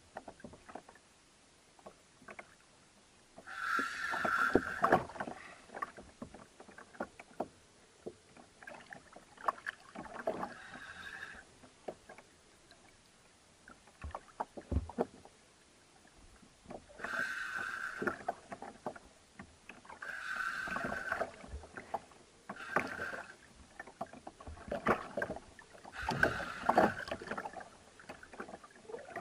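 Spinning reel on a bent jigging rod working under the load of a hooked amberjack: about six bursts of reel noise, each a second or so long, with scattered clicks and knocks between them.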